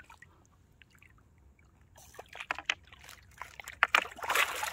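Water splashing and sloshing as a hooked carp is scooped into a landing net: quiet for about two seconds, then a run of irregular sharp splashes, the loudest near the end.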